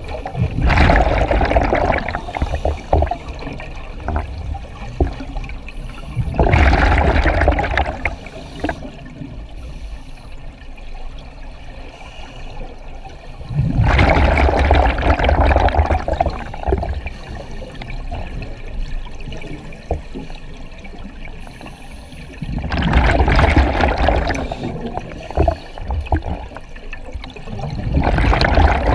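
Open-circuit scuba regulator exhaust recorded underwater: slow, even breathing, each exhalation a rush of bubbles lasting two to three seconds, five in all, with quieter stretches between.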